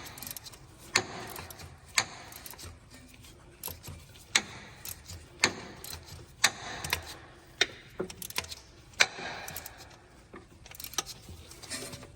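A long-handled flex-head 3/8-drive ratchet clicking as it works loose the hex-head block plug on a Ford 3.5L engine: sharp clicks about once a second with fainter clicking between.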